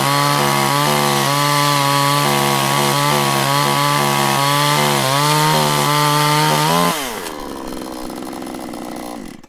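Chainsaw engine running steadily at high revs. About seven seconds in it drops in loudness and slows down, its pitch falling over about two seconds until it stops.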